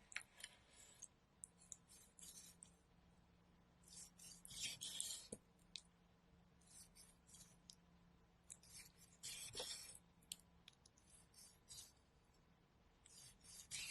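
Quiet, close-up kitchen preparation sounds: short bursts of crisp scraping and rustling with sharp clicks, coming and going every second or two, loudest about four to five seconds in and again near ten seconds.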